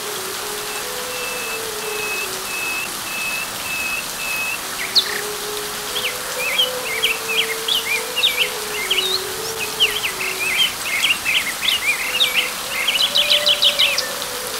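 Steady rain falling on leaves, with birds calling over it: first a run of short, even notes about two a second, then busy chirping and twittering that ends in a quick trill.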